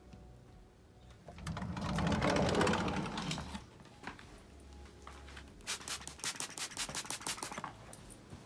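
A glass sliding door rumbling along its track as it is opened, swelling and fading over about two seconds. Later comes a fast run of light clicks, several a second, lasting about two seconds.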